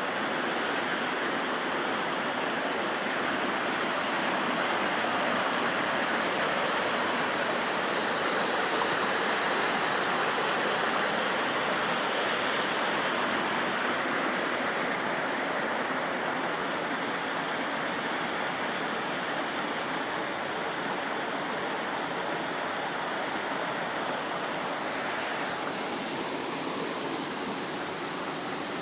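Waterfall: a steady rush of falling water, easing off a little in the second half.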